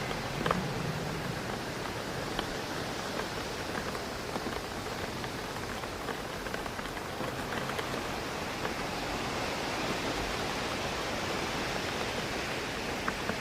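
Steady rain with scattered sharper drop ticks against a window pane, over a constant rushing of wind through trees. A slightly louder tick comes about half a second in, and two more near the end.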